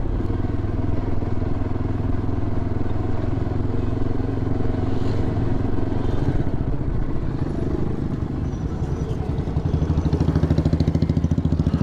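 Motorcycle engine running as the bike rides along and slows down, then idling with an even, fast putter for the last couple of seconds once the bike has stopped.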